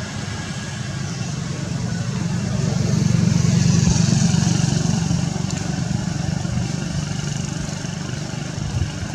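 A motor vehicle's engine running steadily, growing louder about three seconds in and easing off again.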